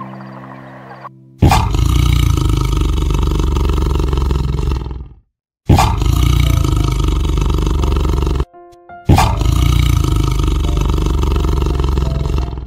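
Tiger roaring three times, each a loud, long roar of about three to four seconds that starts and cuts off abruptly, with soft background music beneath.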